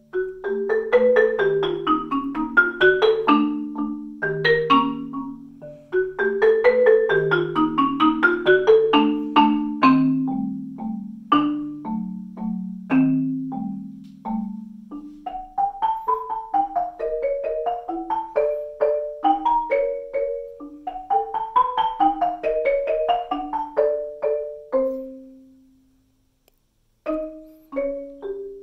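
Solo marimba played with soft yarn mallets: quick rising and falling runs over lower ringing notes. The playing stops for about a second near the end, then starts again.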